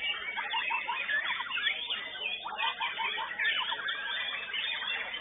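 White-rumped shama (murai batu) singing a rapid, varied song of chirps and whistled pitch sweeps.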